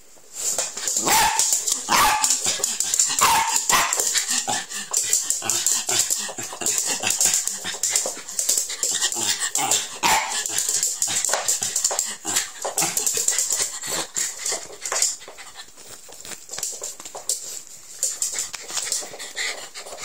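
Terrier barking and yipping over and over, with a few higher yips in the first few seconds.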